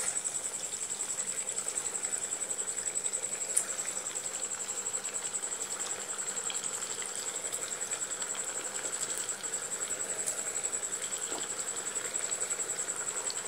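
Dough snacks deep-frying in hot oil in an aluminium kadai over a medium flame: a steady sizzle with fine crackles, and a steady high-pitched whine over it.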